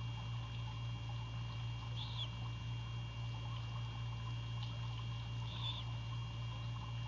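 Steady low electrical hum from the nest-cam microphone with faint high steady tones through it, and two brief high chirps, about two seconds in and again past five seconds.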